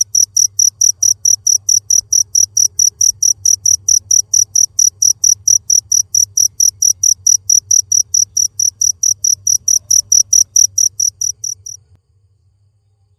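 Cricket chirping in a fast, even rhythm of high-pitched pulses, about four or five a second, stopping suddenly near the end.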